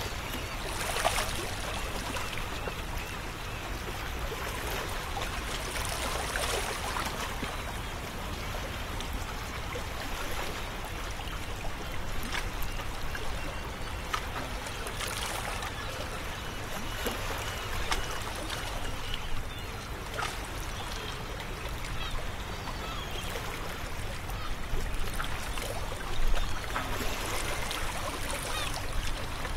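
Beach-surf ambience: small waves lapping and washing onto a sandy shore, a steady wash that swells louder every several seconds as a wave comes in.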